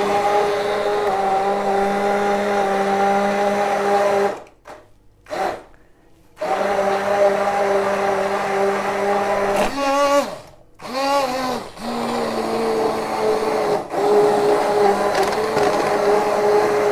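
Hand-held immersion blender motor running steadily while puréeing a pot of boiled chicken and egg. It stops for about two seconds a little over four seconds in, then starts again. Around ten seconds its pitch sags and wobbles and it briefly cuts out before picking back up.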